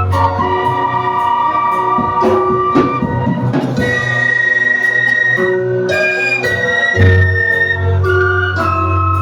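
Instrumental music: held chords and a melody line over a bass line and a steady drum beat.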